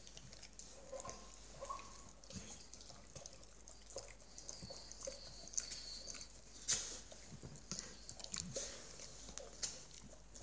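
Faint wet smacking and clicking from a yellow Labrador's lips and jowls as fingers pull at and into its mouth, in scattered irregular smacks.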